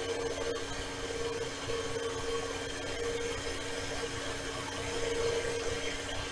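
A steady mechanical hum with two fixed pitches, like a small appliance or fan motor running.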